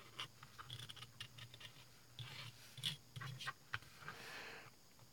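Hobby knife blade scratching and nicking into the plastic deck boards of a model flat car: faint short scrapes and clicks, with one longer soft scrape about four seconds in.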